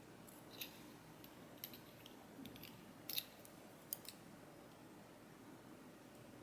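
Faint, sharp clicks of small metal lock parts being handled: the driver pins of a disassembled M&C Condor dimple lock being taken out and set down. There are about six clicks in the first four seconds, the loudest a little after three seconds in.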